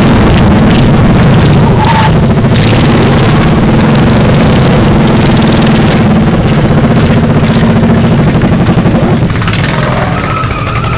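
Racing lawn tractor engine running loud and steady, heard close from the driver's seat; it eases off a little near the end.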